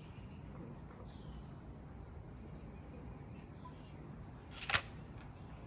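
A single sharp shot from a pellet gun rifle about three-quarters of the way through, over repeated high chirps in the background.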